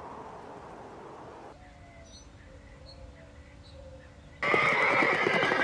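Llama giving a loud, high, whinny-like call that starts suddenly about four seconds in, after a few seconds of faint ambience.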